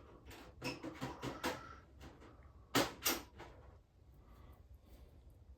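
Light clicks and knocks of metal engine parts being handled and set down, with two sharper knocks about three seconds in.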